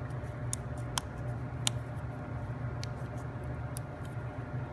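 A few light, sharp clicks of laser-cut plywood pieces being pressed out of their sheet and handled, over a steady low hum.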